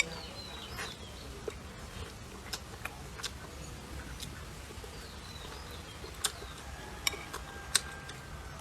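Eating sounds: scattered sharp clicks and crunches, about nine spread over several seconds, over a low steady background with a few faint bird chirps.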